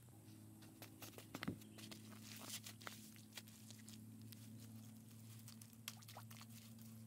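Faint rustles and light taps of handfuls of straw-mixed mud being lifted from a woven basket and pressed against the well's base, over a steady low hum.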